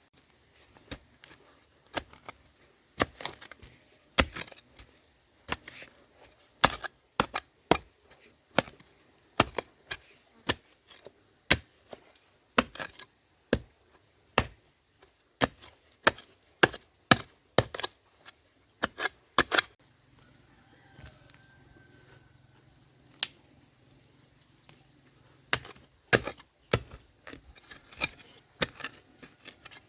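Repeated chopping blows on bamboo, about one or two sharp strikes a second, stopping for about five seconds past the middle before starting again.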